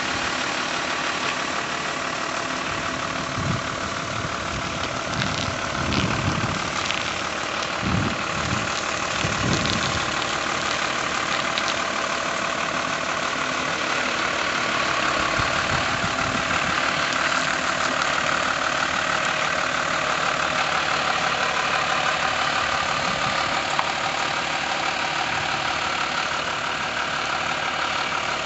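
Iveco flatbed lorry's diesel engine running steadily at low revs while the lorry manoeuvres slowly.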